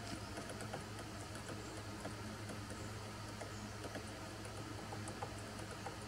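Downy woodpecker pecking and probing at a branch while foraging: faint, scattered light taps over a steady low hum.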